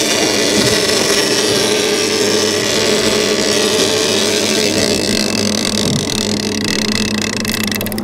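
Evinrude E-TEC 150 two-stroke outboard running steadily at slow trolling speed, with wash from the boat's wake. Near the end a rapid ratcheting clicking starts from a big-game reel's clicker.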